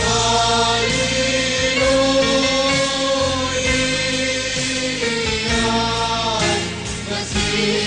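Choir singing an Arabic Orthodox Easter hymn in held chords that change every second or so.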